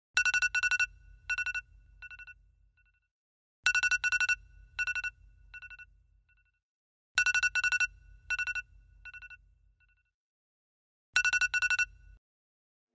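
An electronic ringtone rings in four bursts about three and a half seconds apart. Each burst is a quick run of high beeps that fades off into fainter repeats, with a low buzz under it.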